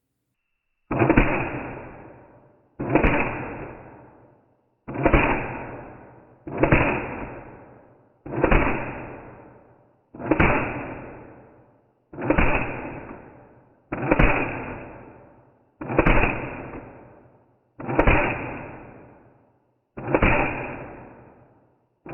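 An airsoft gun's DSG (dual sector gear) gearbox cycling, slowed down: a sharp mechanical strike that fades out over about a second and a half, repeated about every two seconds, around eleven times.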